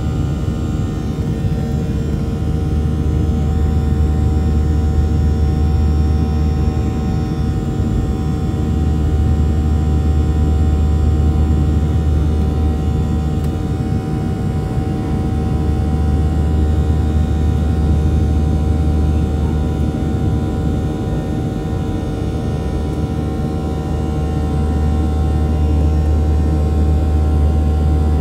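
Cabin noise inside a Boeing 737 climbing after takeoff: a steady low drone from the jet engines and rushing air, with several steady tones on top, swelling and easing slightly every few seconds.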